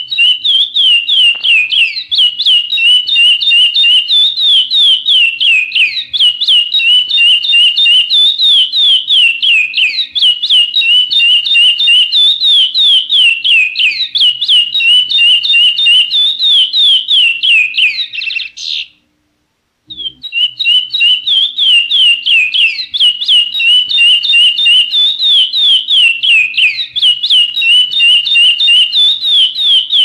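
Songbird singing a fast, unbroken run of high whistled notes that rise and fall. It breaks off for about a second some two-thirds of the way through, then starts again.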